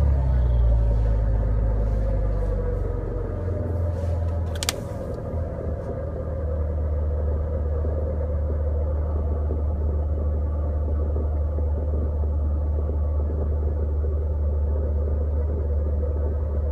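Jeep Cherokee engine idling steadily just after starting, its idle note shifting about five seconds in. One sharp click about five seconds in.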